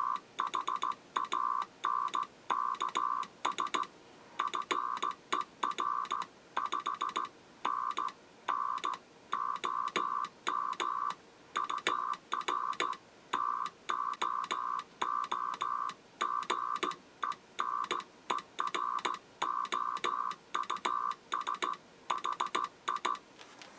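Morse code keyed on a 1929-style one-tube Hartley oscillator transmitter with a type 211 triode, heard as a tone of about 1 kHz. The dots and dashes run in groups with short gaps, and each one starts and stops with a faint click.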